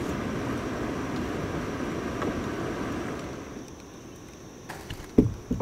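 Low rumbling wind and water noise on a kayak-mounted camera for about three seconds, then quieter, with two dull thumps on the kayak hull near the end.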